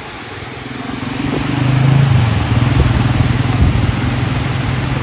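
A motorcycle engine running, growing louder about a second in and then holding a steady hum, over the rush of floodwater.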